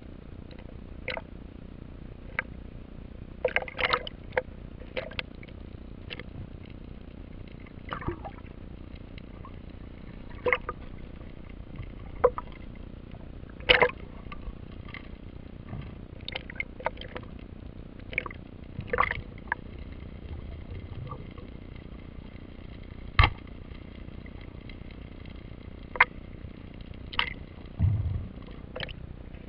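Heard underwater: irregular sharp clicks and knocks from a speargun being handled and its rubber bands pulled back to load it, over a steady low rush of water on the camera housing. The loudest knocks come about halfway through and again about three quarters of the way in.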